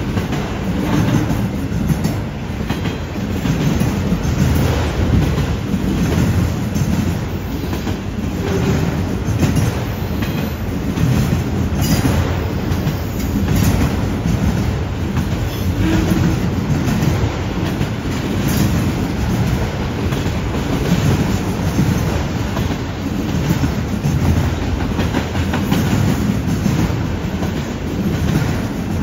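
Freight train of autorack cars rolling past: a steady rumble of steel wheels on rail, with frequent clicking as the wheels cross the junction switch and rail joints.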